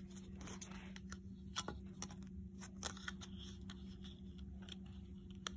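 Faint, scattered clicks and taps of small pieces of a doll's toy iPad being handled, with a steady low hum underneath.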